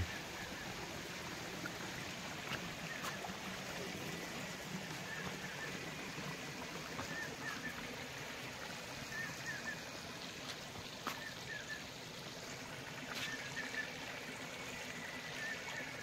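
Shallow stream trickling over flat rock slabs and between boulders, a steady soft wash of running water.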